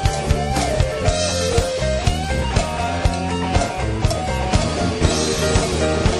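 Blues-rock band music: electric guitar over bass and drum kit, with a steady beat.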